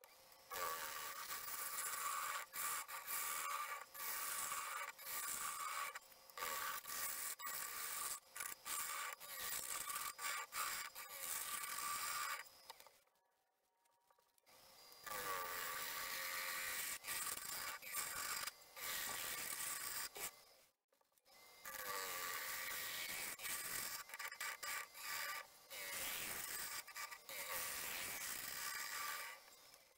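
A bowl gouge shearing into the inside of a yew bowl spinning on a wood lathe, a steady scraping hiss of cutting with the lathe's whine underneath. The cutting stops for about a second and a half a little before halfway, and again briefly about two-thirds of the way through.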